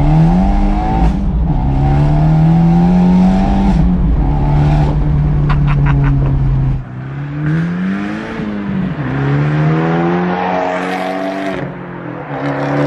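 Abarth 124 Spider's 1.4-litre turbocharged four-cylinder, fitted with a sport cat, cross pipe and a Monza exhaust with its valve open, accelerating hard through the gears. The pitch climbs in each gear and falls at each change, with a quick run of pops around one change. It is heard first from inside the open-top car, then from the roadside as the car accelerates toward and past.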